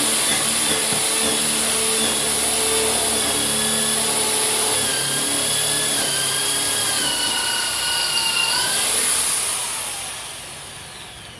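Total TG105136 550 W corded impact drill boring into a wooden beam with a twist bit. The motor's whine sags slightly in pitch as the bit bites under load, then the drill winds down near the end.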